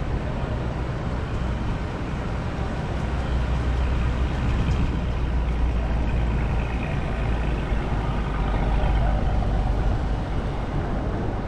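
Steady low rumble of city street traffic, mixed with wind on the microphone of a camera moving along the street.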